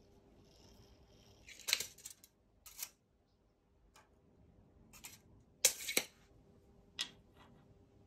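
A handful of short, sharp clicks and knocks at irregular intervals, the loudest a quick pair a little past the middle, over a faint steady hum.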